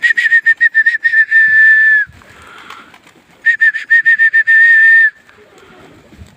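A pigeon keeper whistling loudly to chase his pigeons up into the air: two blasts of a high, shrill whistle, each a quick run of short stuttering notes ending in a long held note.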